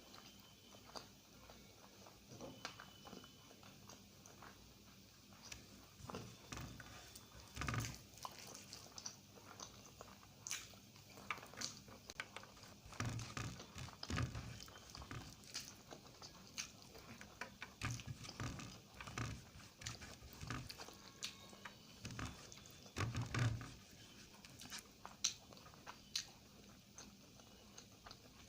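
Close-up chewing and mouth sounds of a person eating egg curry with rice: irregular wet smacks and clicks, with louder bursts of chewing several times.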